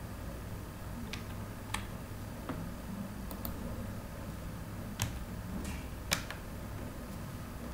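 Sparse keystrokes on a computer keyboard: a handful of separate sharp clicks, irregularly spaced, the two loudest a little after the middle, over a steady low hum.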